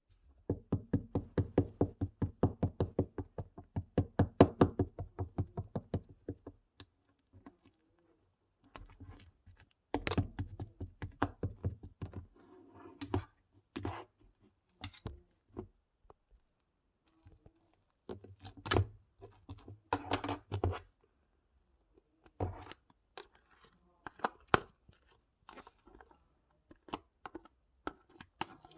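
Hands playing with slime: quick sticky clicks and pops, about five a second for the first six seconds, then slower, scattered pokes and pops.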